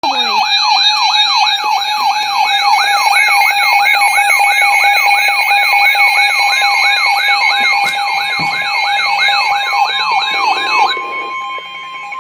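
Electronic siren-style emergency alert tone announcing a tornado warning: a loud pitch sweeping up and down about three times a second over steady tones. It cuts off near the end.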